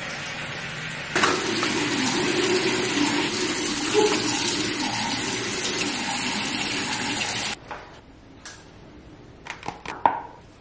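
Bathroom tap running, turned up louder about a second in and shut off abruptly after about seven and a half seconds, followed by a few light clicks and taps.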